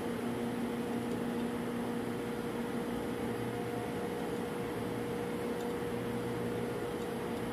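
Steady hum of running machinery with a constant low tone over an even background roar, typical of a ship's refrigeration machinery space.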